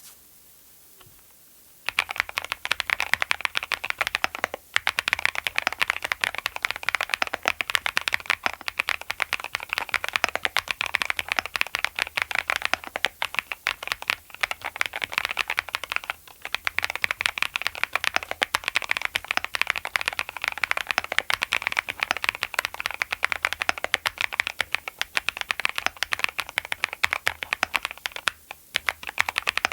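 Mechanical keyboard fitted with Clackbits linear switches being typed on fast and continuously, a dense run of keystroke clacks that starts about two seconds in and pauses briefly a few times.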